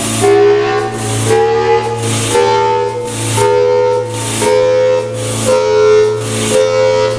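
Federal Signal Thunderbolt 1003 outdoor warning siren winding up, a chord of several tones climbing slowly in pitch. A hiss surges about once a second, on a unit whose test shows a solenoid issue.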